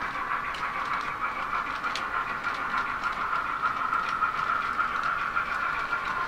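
H0-scale model freight train of covered goods wagons rolling past on model track: a steady whir of the wheels, with a few faint clicks at the rail joints.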